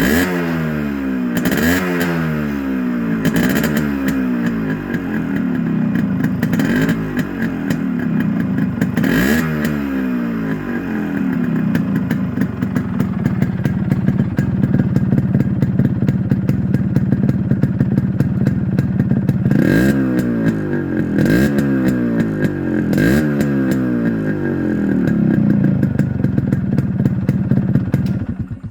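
Yamaha RX100's 98 cc two-stroke single-cylinder engine breathing through an RXK muffler and a 1987 six-hole silencer, revved in a string of quick throttle blips that each rise and fall back. It then idles steadily for several seconds, takes three more blips, and settles back to idle.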